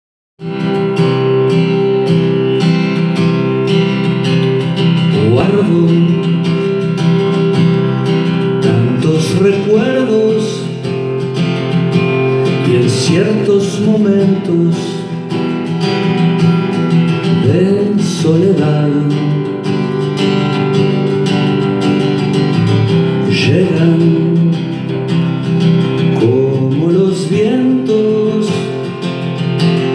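Acoustic guitar playing sustained chords, with a man singing into a microphone over it at times.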